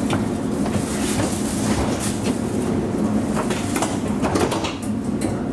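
Alstom Citadis tram heard from inside the cab: a steady hum and rumble, with scattered clicks and knocks.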